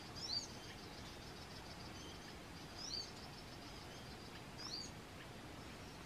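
A small songbird giving a short, high call three times, about two seconds apart, each a quick pair of falling notes.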